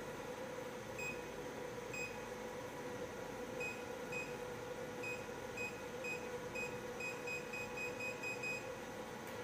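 Short, identical electronic beeps from an LED light therapy machine's control panel, about fourteen of them, irregularly spaced and coming faster near the end, as its settings are keyed through while the panels change colour. A steady hum runs underneath.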